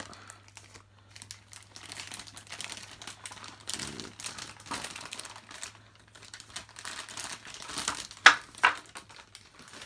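Plastic packaging crinkling and rustling as a boxed figure is unwrapped by hand, with two sharp, louder crackles near the end.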